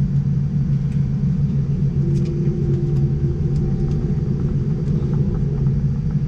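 Steady low rumble of cabin noise inside a Boeing 787-9 airliner, with a few faint clicks.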